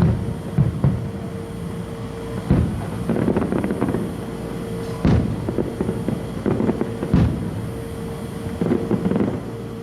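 Aerial fireworks going off: a string of sharp bangs, the biggest at about two and a half, five and seven seconds in, with bursts of rapid crackling between them.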